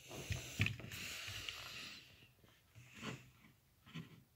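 Hands handling a small Bluetooth speaker and pressing the buttons on its base: faint rubbing with a few sharp clicks and knocks.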